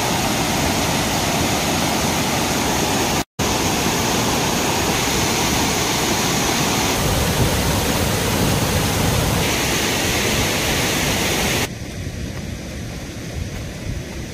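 Steady rushing of water. It breaks off for an instant about three seconds in, and near the end it drops to a quieter, duller hiss.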